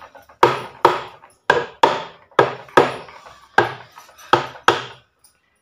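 Hammer tapping a part into its seat on an electric pump motor's aluminium end plate: about nine taps, roughly two a second, each with a brief ring, stopping about five seconds in.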